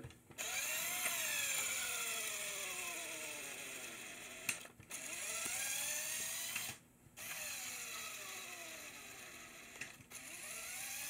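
Lego Power Functions motor whirring through its gears as it drives the linear actuator that pulls the brake strings. The whine runs in three or four stretches with short stops between them, its pitch mostly falling within each run.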